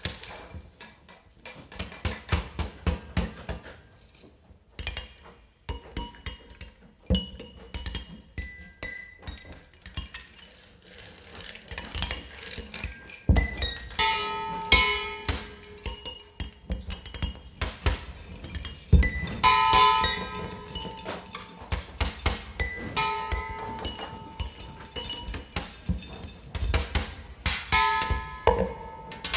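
Free-improvised music: scattered clicks, knocks and clinks with short high ringing tones, and a few brief pitched notes sounding now and then.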